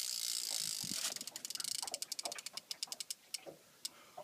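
Fishing reel's drag clicker ratcheting as a hooked sturgeon pulls line off. A fast continuous buzz breaks about a second in into separate clicks that slow and thin out toward the end as the run eases.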